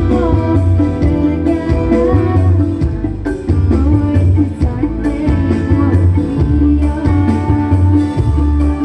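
Music with a steady, repeating bass beat under a melody.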